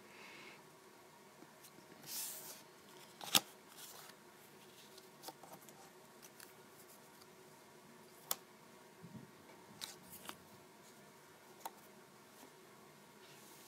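Small paper cut-outs being handled and laid onto a paper phone mock-up: a short rustle about two seconds in, a sharp tap soon after, and a few light ticks later on.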